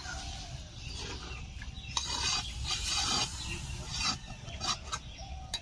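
Metal spatula stirring a watery chicken curry in a metal pan, with several scraping strokes against the pan, mostly in the second half, as freshly added water is mixed in.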